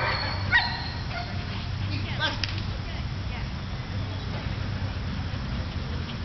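A dog gives a few short, high-pitched barks while running, once about half a second in and again a couple of seconds in. A steady low rumble lies underneath.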